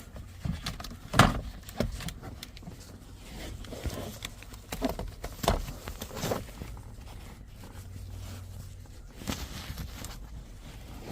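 Scattered clicks and knocks of plastic shifter trim and the shift knob being handled and worked loose, the loudest about a second in.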